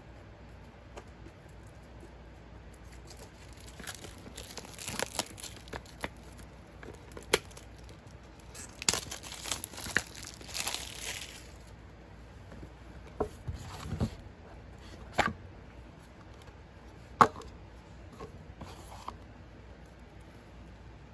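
Wrapping being torn open and crinkled off an oracle card deck's box, in two spells of rustling, with a few sharp taps and knocks as the box is handled.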